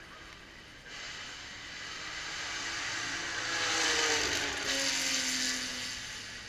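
A race car passing at speed: its engine grows louder to a peak about four seconds in, then drops in pitch and fades as it goes by.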